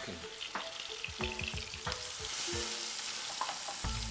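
Onion frying in hot oil in a pan, sizzling steadily, while a spoon stirs and knocks against the pan many times.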